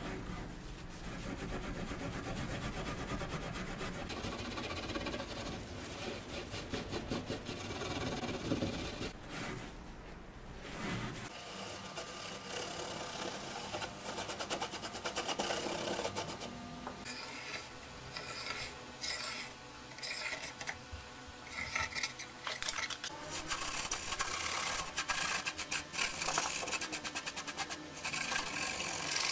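Steel wool scrubbed rapidly back and forth over the old wooden boards of a chest lid, rasping off wet, flaking old paint. The strokes run almost continuously at first, then come in shorter bursts with brief pauses in the second half.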